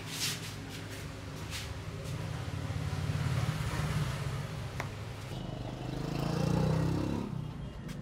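Fingers rubbing and scratching through hair during a head massage, over a steady low hum and a low rumble that swells twice. One sharp click comes about five seconds in.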